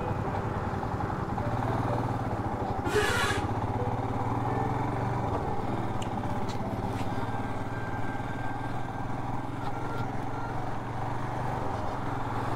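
Royal Enfield Himalayan's single-cylinder engine running steadily as the motorcycle pulls away and rides along the road, heard from the rider's seat. A short hiss about three seconds in.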